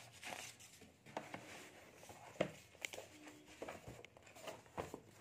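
Handling noise as a paper textbook and notebook are shifted on a clipboard: soft rustles and scattered light taps and clicks, the sharpest about two and a half seconds in.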